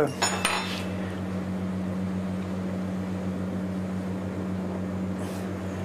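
Steady low hum with a soft hiss under it in a kitchen at the stove, with a few faint clicks about half a second in.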